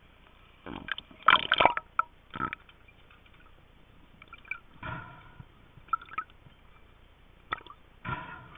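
Underwater sound picked up by a camera in its waterproof housing: irregular knocks, clicks and gurgles of water moving around it, loudest in a cluster about a second in, then scattered single ones every second or two.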